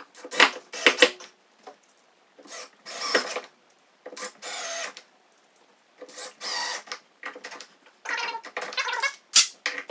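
Cordless DeWalt drill-driver running in short bursts, stopping and starting several times, as it drives hinge screws into a wooden door lining.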